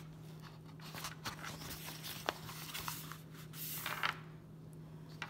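Paper pages of a picture book being turned, with soft rustles and light taps, the loudest rustle about three and a half seconds in. A faint steady hum runs underneath.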